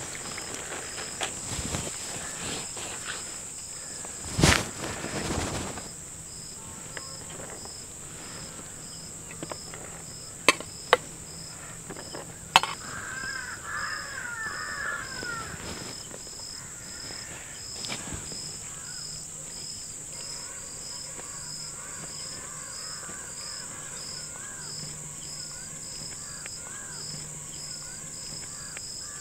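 Crickets and other insects chirping steadily: a continuous high buzz with a rhythmic high chirp about twice a second. Birds call now and then. A few sharp knocks cut through, the loudest about four seconds in.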